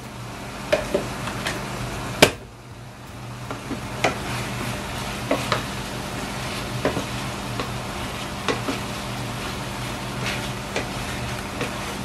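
Diced chicken sizzling in a stainless steel frying pan while it is stirred with a wooden spatula, the spatula knocking against the pan every so often, with one sharper knock about two seconds in.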